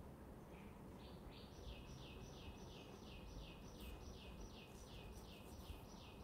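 A bird calling from the garden, repeating a short, high, falling note about four times a second. The run begins about half a second in, grows fuller over the first second, and goes on past the end, over faint low room noise.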